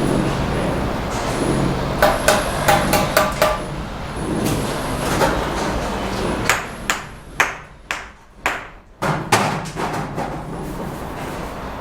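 Steel trowel tapping cement bricks down into their mortar bed: a quick run of about six sharp, ringing taps about two seconds in, then a few more spaced knocks between about six and ten seconds, over a steady low rumble.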